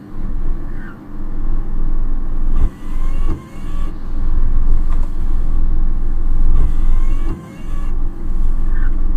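Car driving through typhoon weather, heard from inside the cabin: a loud, steady low rumble of road and engine noise that dips briefly a few times.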